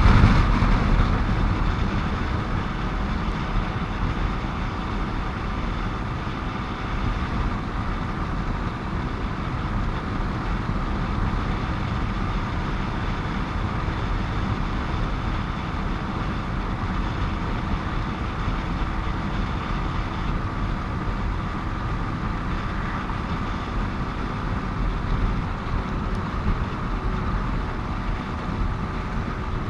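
Steady road noise of riding a motorcycle in highway traffic: engine and tyre rumble with wind hiss, louder for a moment in the first second or two.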